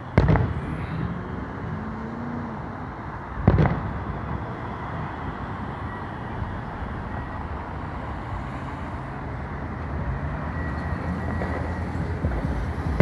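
Distant aerial firework shells booming, once at the start and again about three and a half seconds in, over steady city traffic noise with a vehicle engine running. Another boom comes right at the end.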